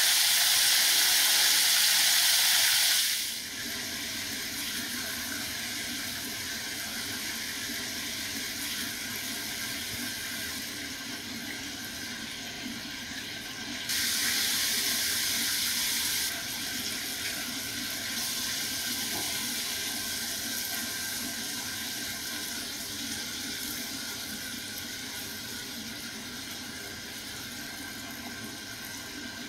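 Chicken pieces deep-frying in hot oil in a cast iron skillet, a loud steady sizzle for about three seconds. A softer steady hiss follows, with a louder stretch about fourteen seconds in.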